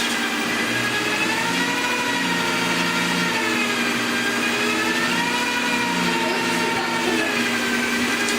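Electric drill running as the motor of a printer's extruder, a steady motor whine that slowly wavers up and down in pitch as its speed shifts under load.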